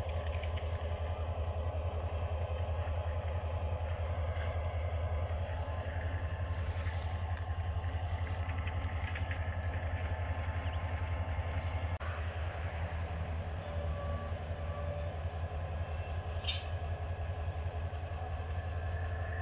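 Diesel-electric locomotives running in a rail yard, a steady low rumble that does not let up.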